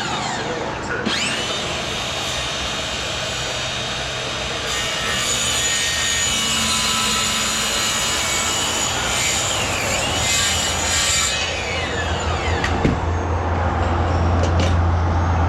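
Timber being sawn, a continuous cut with a few falling whines along the way and a low hum toward the end.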